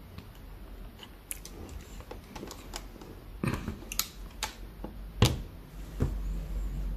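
Irregular small clicks and taps of tools and parts handled on a workbench, with a sharper knock a little after five seconds in.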